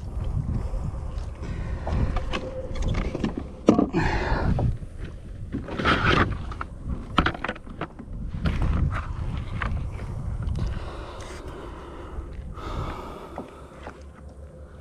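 Handling noise in a plastic fishing kayak as a largemouth bass is worked out of a rubber-mesh landing net and laid on a measuring board: irregular rustling, knocks and bumps against the hull, loudest about four and six seconds in, over a steady low rumble.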